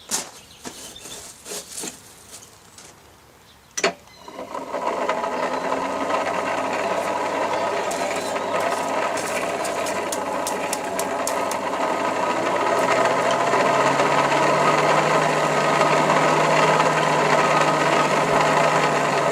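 A few light clicks and taps, then a sharp click about four seconds in as an electric motor switches on and runs with a steady drone. Its hum rises in pitch partway through as it speeds up.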